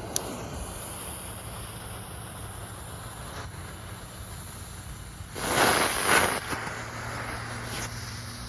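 Small tank-shaped novelty ground firework burning with a steady hiss, flaring louder for about a second some five seconds in.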